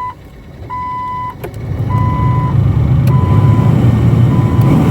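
Dashboard warning chime of a 1998 Jeep TJ beeping about once a second, and from about two seconds in the heater blower fan comes on with a loud, steady rush of air. It is being tested on a newly replaced blower motor resistor.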